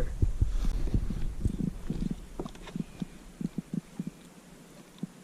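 A string of short, irregular low knocks and thumps as a freshly landed redfish is handled on the kayak. They come thick at first and grow sparser toward the end.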